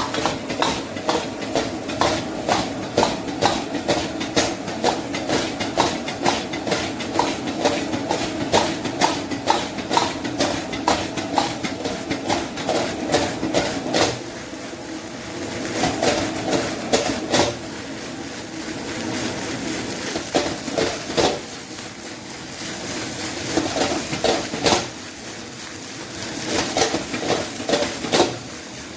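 Kitchen utensils knocking repeatedly, two to three sharp knocks a second, over a steady hum; the knocking eases off briefly twice.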